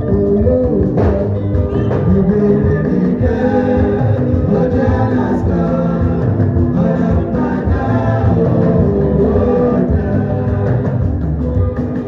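A live band playing loud, continuous music with a sung vocal line over the instruments.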